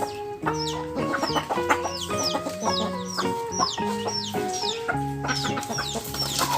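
Chicks peeping: short high cheeps that fall in pitch, repeated about twice a second, over background music with a steady run of notes.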